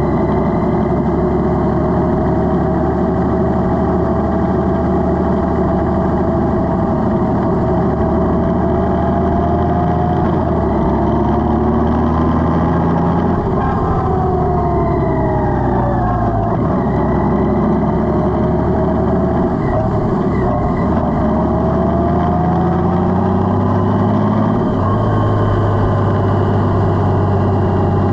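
Honda Gold Wing DCT's flat-six engine running on the move, its pitch climbing slowly, falling away sharply about halfway through, then climbing again.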